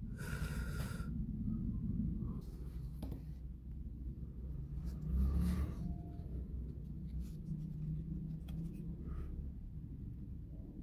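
Faint rubbing and light clicks of a laser-cut wooden model boat being handled and turned in the hands, over a steady low rumble.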